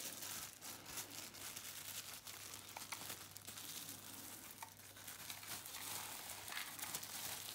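Plastic bubble wrap crinkling faintly as hands peel it off a gamepad, with many small crackles.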